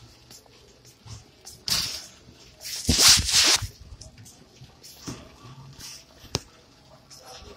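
Handling noise from a phone rubbing against jacket fabric: scraping rustles, loudest about three seconds in, and a sharp click a little after six seconds.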